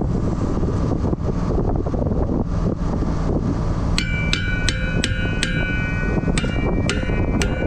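Hammer blows on the steel parts of a disc-harrow gang, each blow ringing like struck metal: a quick run of about five strikes starting about halfway through, a short pause, then about four more near the end, over a steady low rumble.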